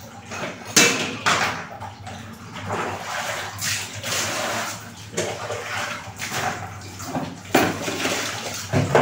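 Water poured from a plastic hand scoop over dishes and plastic containers in a plastic basin, splashing in several separate pours.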